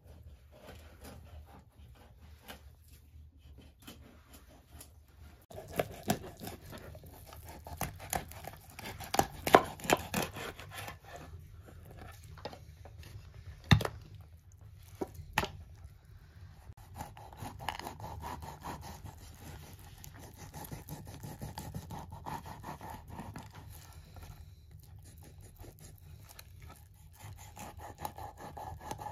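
Large kitchen knife cutting through a whole raw fish on a wooden cutting board: rasping, tearing strokes of the blade through skin and flesh, with a few sharp knocks as the blade meets the board, the loudest about ten and fourteen seconds in.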